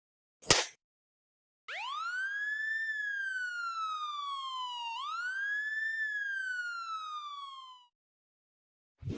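A short sharp sound, then an electronic wailing siren that sweeps up quickly and falls slowly, twice, before stopping.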